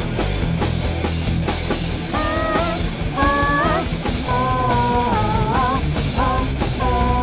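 Gothic metal music: distorted guitars and drums, with a held, bending melody line coming in about two seconds in.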